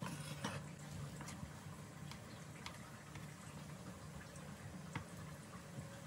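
Cheese cubes sliding off a wooden cutting board into a ceramic dish at the start, then a few light clicks and taps of a knife cutting a block of cheese on the wooden board. A steady low hum runs underneath.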